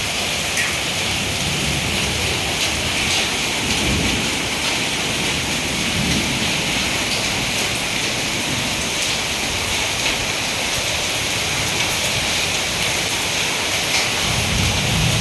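Heavy downpour of rain and hailstones pelting surfaces in a dense, steady hiss with scattered small ticks, and a few low rumbles now and then.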